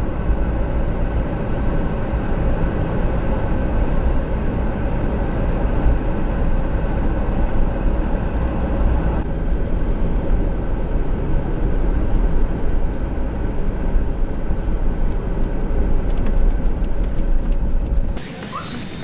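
Steady low rumble of a moving vehicle, with a few faint steady tones above it; it cuts off suddenly near the end.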